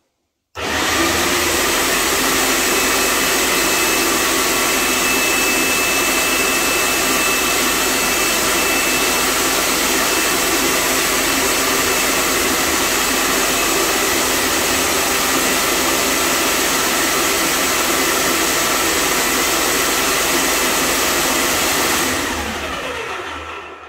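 Wagner Control Pro 250M airless paint sprayer's pump motor running steadily in prime mode with its pressure dial at one, drawing paint up to fill the suction and return tubes. It starts abruptly about half a second in and winds down near the end.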